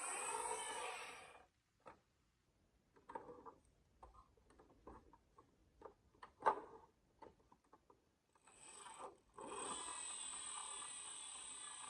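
Glass marbles rolling along a wooden HABA marble run track, with a run of separate clicks and knocks as marbles drop and strike wooden pieces. One sharp knock in the middle is the loudest. Another long steady roll starts about three quarters of the way in.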